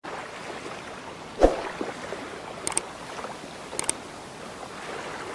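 Intro sound effects: a steady water-like wash, a single heavy thud about one and a half seconds in, then two quick double clicks, about a second apart, from a subscribe-button and bell click animation.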